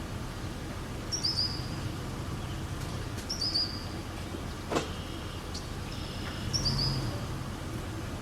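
A bird gives three short, high-pitched calls a couple of seconds apart, over a steady low rumble. A single sharp click about halfway through.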